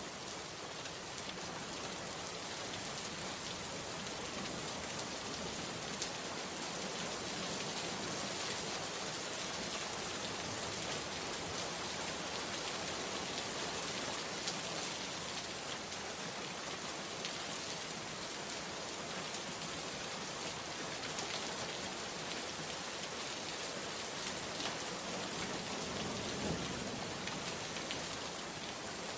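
Steady rain falling, an even hiss with scattered single drops ticking out of it now and then.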